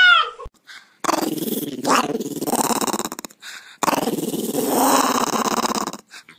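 Small fluffy white dog growling in two long growls of about two seconds each, with a short pause between them. A cat's meow ends just as the sound begins.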